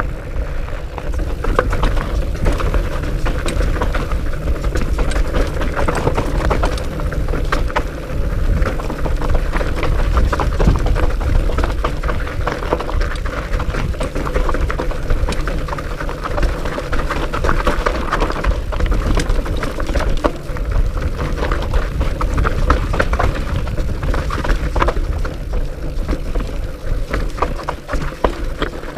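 Trail-riding noise from a fat bike on a rocky descent: wind rumbling on the action-camera microphone, fat tires rolling over dirt and rock, and many small clicks and knocks as the bike rattles over the bumps.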